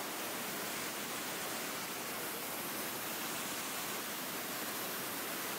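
Steady, even rush of a waterfall and its stream.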